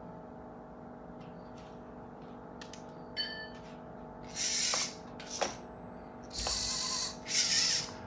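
VEX IQ clawbot's smart motors whirring in three short bursts in the second half as the robot drives up to a cube and closes its claw on it. A few light clicks and a short beep come about three seconds in.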